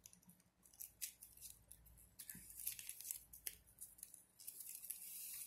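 Faint crinkling and rustling of glossy ribbon as it is pushed and pulled through a tight woven ribbon flower with a slim metal tool, in scattered small crackles that thicken into a steadier rustle near the end.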